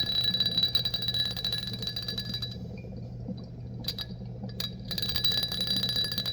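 A quarter chattering rapidly on the mouth of a bottle with a metallic ringing, lifted again and again by carbon dioxide gas escaping from dry ice inside. The chatter stops about two and a half seconds in, with a couple of single clinks, and starts again about five seconds in.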